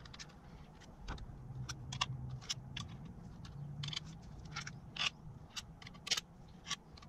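Small steel bolts being handled and slid into the bolt holes of an aluminium transmission valve body and TCM, giving a scatter of light, irregular metal clicks and taps.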